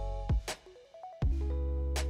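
Electronic background music with deep held bass notes and sharp drum hits; it thins out briefly about halfway through, then comes back in full.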